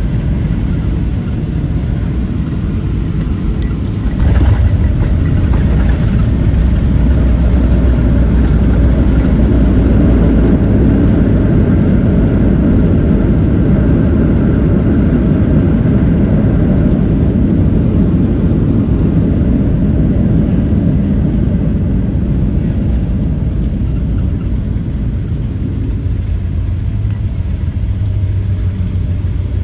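Cabin sound of a Boeing 737-700 landing. About four seconds in there is a sudden touchdown jolt, then a loud, deep rumble of the CFM56 engines in reverse thrust and the wheels on the runway. The rumble eases gradually over the last several seconds as the jet slows.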